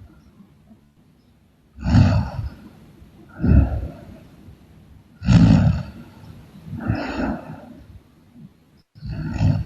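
A woman snoring in her sleep: five loud, rasping snores, one about every one and a half to two seconds, with quiet breathing in between.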